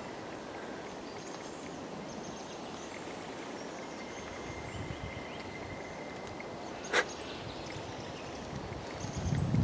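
Quiet forest ambience with faint, short, high bird calls, one sharp click about seven seconds in, and low thumps near the end.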